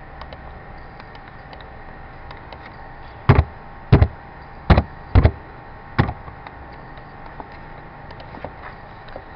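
Clicks of a computer mouse and keyboard as settings are entered in a software dialog: five loud, sharp clicks in a cluster around the middle, with faint light ticks scattered between.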